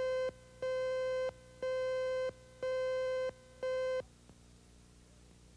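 Videotape countdown-leader beeps: a steady tone near 500 Hz sounding once a second, each beep about two-thirds of a second long, five times, the last one shorter. A faint low hum follows.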